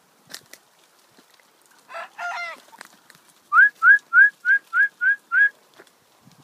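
A person whistling seven short rising notes in quick succession, about three a second. A brief harsh call comes just before the whistles.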